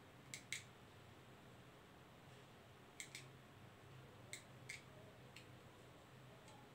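Near silence: quiet room tone with a faint low hum and a few scattered faint clicks.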